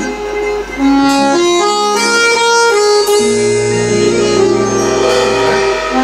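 Instrumental music: an accordion playing a melody of long, held notes over plucked acoustic guitars.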